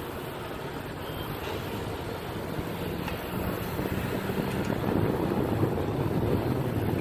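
Freight train diesel locomotives rumbling with a steady low engine drone, growing louder from about four seconds in as the train draws near.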